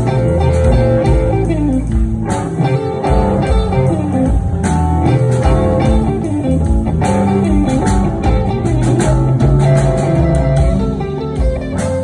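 Live blues band playing an instrumental passage: electric guitars and bass guitar over a drum kit.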